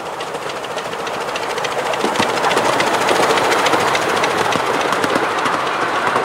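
7¼-inch gauge miniature steam locomotive and its passenger cars running past close by, with a rapid clicking of wheels on the track, growing louder over the first two to three seconds as the engine draws level.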